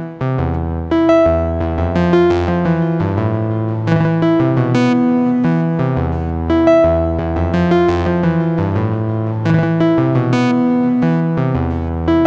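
Sequenced monophonic synth bass line from an Ensoniq EPS Classic playing the saw-style waveform B02, with glide between notes and aftertouch opening the filter so some notes brighten and others fade.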